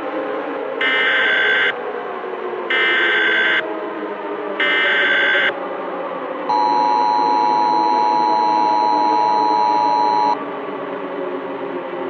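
Emergency Alert System SAME header: three short bursts of screechy digital data tones about a second apart, opening a new alert. They are followed by the two-tone EAS attention signal, two pure tones sounded together (853 and 960 Hz) and held for about four seconds, over a low ambient drone.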